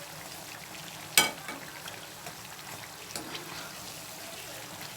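Batter-coated bread pieces deep-frying in hot oil, a steady crackling sizzle. A sharp knock about a second in, the loudest sound, and a lighter one around three seconds.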